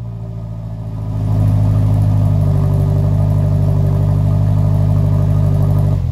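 1968 Datsun Roadster's four-cylinder engine running through a homemade muffler packed with stainless-steel scrubbing pads. About a second in the engine speed rises and is held steady, a loud, low, even exhaust note.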